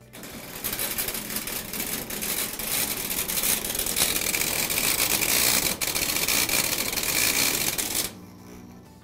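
Front-load washer drain pump running with a foreign object caught in the pump body: a loud, rapid rattling and grinding over a high whine. It starts abruptly and cuts off about eight seconds in.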